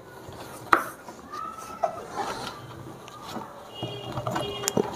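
Hands handling a suitcase's interior compression strap and nylon lining: a sharp click about three-quarters of a second in, then soft rubbing and rustling, with a few light clicks near the end.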